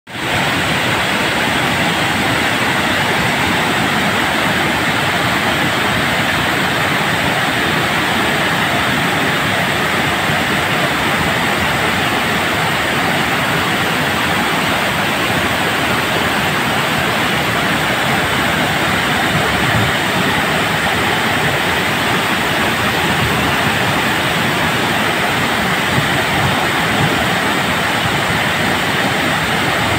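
Floodwater pouring from the open spillway gates of a masonry dam and down its stepped face: a loud, steady rush of falling water.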